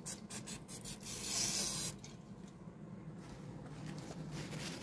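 Paper towel rubbed over the metal of a clutch pressure plate to wipe off grease: a few short scuffs, a longer wipe about a second in, and another near the end.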